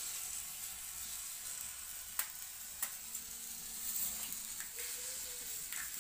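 Egg and potatoes frying in oil in a black pan over a wood fire: a steady sizzle, with a few sharp clicks.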